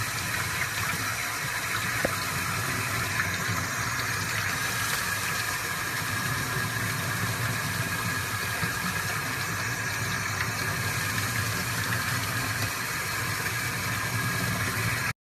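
A steady, unbroken rushing noise with a low hum beneath it, ending abruptly.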